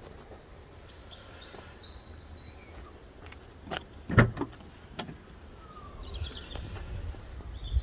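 Hatchback tailgate being opened: a few sharp clicks of the latch release, the loudest about four seconds in, then the tailgate lifting. Birds chirp faintly in the background.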